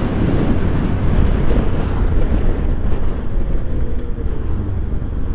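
Steady wind rush buffeting the microphone of a camera mounted on a moving Suzuki V-Strom 650. The motorcycle's V-twin engine runs underneath the wind.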